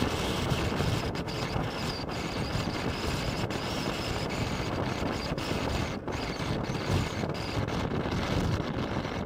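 Wind rushing over the microphone of a Honda CX500 motorcycle riding at road speed, with the bike's V-twin engine running steadily beneath it.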